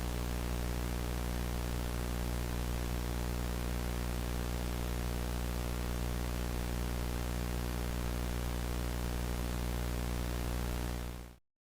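Steady low electrical hum under a layer of static hiss, which cuts off abruptly near the end into dead silence.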